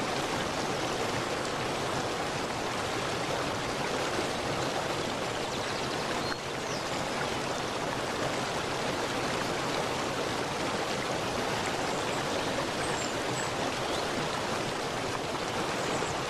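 Steady rushing of running water in a stream, an even, unbroken wash of noise. A few faint high bird chirps come through over it, once around the middle and a couple more later on.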